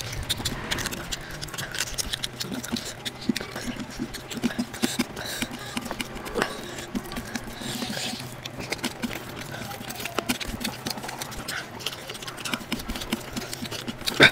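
Rapid, sped-up eating sounds of a person eating rice and curry by hand: a dense run of chewing, lip-smacking and wet mouth clicks, with fingers mixing rice on a steel plate. A sharper click comes just before the end.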